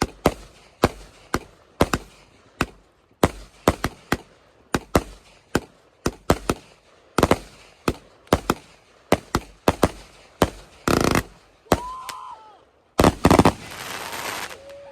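Consumer fireworks going off: a run of sharp bangs, two or three a second, then two dense crackling bursts near the end, the last trailing off in a crackle.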